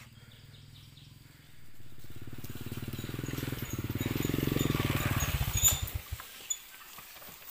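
Small motorcycle engine running and growing louder for a few seconds, then cutting off abruptly about six seconds in, with a sharp knock just before it stops.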